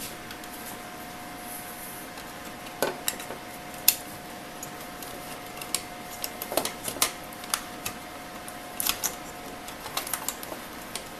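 Scattered clicks, taps and knocks of a hard drive and its IDE ribbon cable being handled and pushed into place in a sheet-metal DVR chassis, a few at a time with short pauses between.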